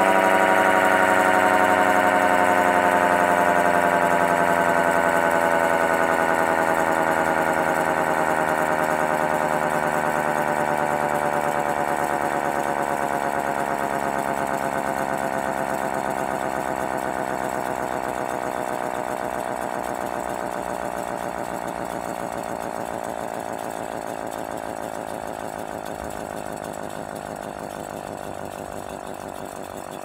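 Electric motor-driven mechanical siren winding down: the rotor slows, so the wail slides steadily and slowly lower in pitch and fades.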